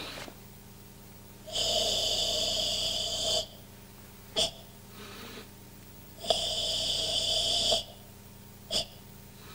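Karate ibuki breathing: two long, forceful, hissing exhalations from the throat, each about two seconds, with a short sharp breath between them and another near the end.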